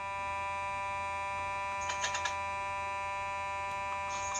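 Fire alarm horn giving a steady, unbroken buzz, with a few light clicks about two seconds in and again near the end.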